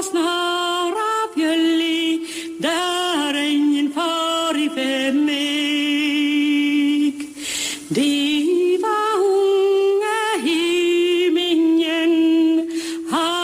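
Unaccompanied solo voice singing long held notes with vibrato and sliding ornaments, with short breath pauses about two and a half and eight seconds in.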